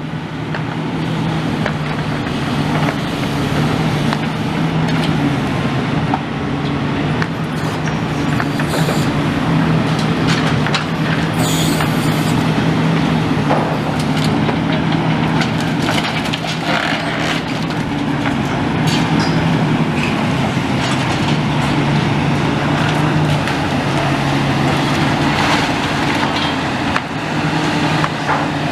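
Heavy diesel demolition machinery running steadily at the demolition site, with scattered clanks and knocks of metal and rubble being handled and a brief hiss about eleven seconds in.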